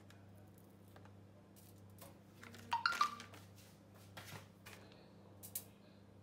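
Quiet kitchen handling noises over a steady low hum: soft rustling and clicks, with a brief clatter about three seconds in and a few lighter clicks after it.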